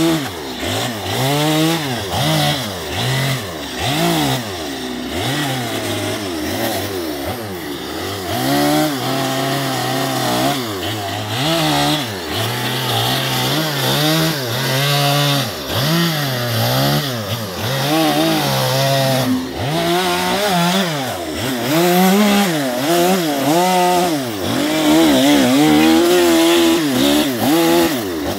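Two-stroke chainsaw cutting into western red cedar, its engine revving up and down over and over, the pitch rising and falling with each short cut.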